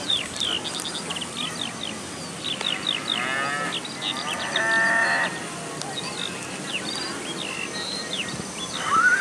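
Small birds chirping over and over, with a farm animal bleating about three to five seconds in, and a horse's whinny starting near the end.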